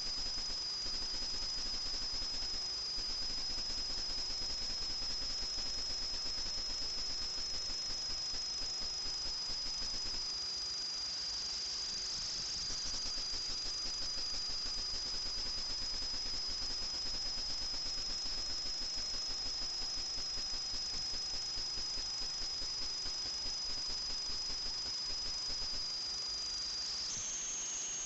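FPV quadcopter's electric motors giving a steady high-pitched whine over a constant hiss. The pitch drifts slightly with throttle and steps up sharply about a second before the end.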